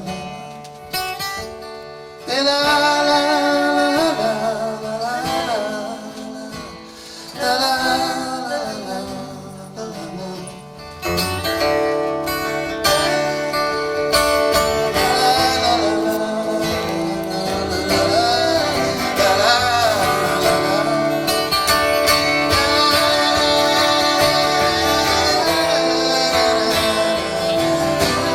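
Live band music led by guitar, with a melody line that bends and wavers in pitch over sustained chords. It builds and fills out from about a third of the way in.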